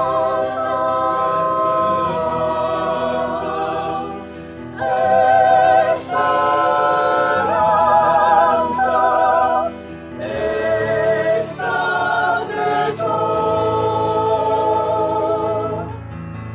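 Mixed choir of sopranos, altos, tenors and basses singing held chords with vibrato. The phrases break off briefly about four and ten seconds in, then resume on new chords.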